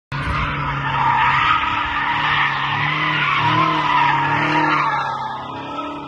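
BMW F10 M5 drifting: sustained tyre squeal over its twin-turbo V8 running under load, the squeal fading near the end.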